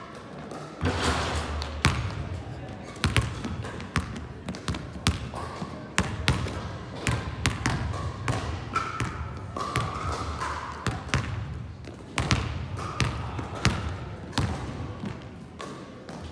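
Basketballs bouncing on a sports-hall floor: irregular thuds of dribbling, with an occasional ball off the hoop or backboard, echoing in a large hall.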